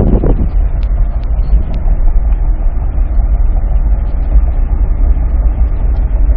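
Steady low rumble of road and engine noise inside a moving vehicle's cabin at about 40 mph. A louder rush of air dies away just after the start.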